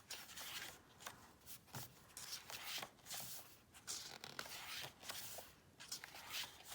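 Paper and plastic rustling in short, irregular bursts as an album's packaging, photocards and postcards are handled.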